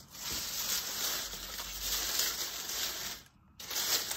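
Dry autumn leaves rustling and crackling as hands scoop and press them into a pile. There is a short break a little over three seconds in, then another burst of rustling.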